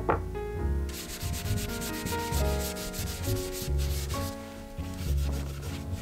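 Hand sanding of the painted face of an etched steel axe head: fast, scratchy back-and-forth rubbing that starts about a second in and eases off a little after four seconds.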